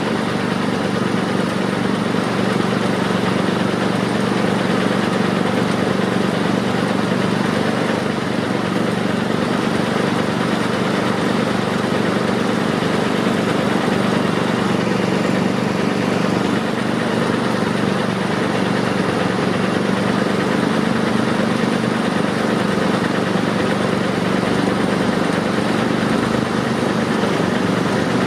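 Heavy diesel engine idling steadily: an even low hum that holds the same speed and level throughout.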